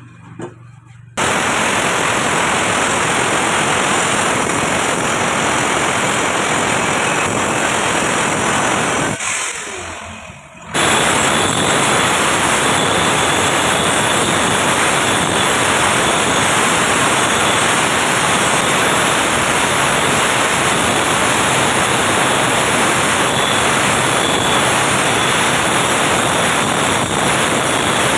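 Electric angle grinder grinding the edge of a granite tile to shape a stair-nosing profile: a loud, continuous harsh grinding noise. It fades out around nine seconds in and starts again about a second and a half later.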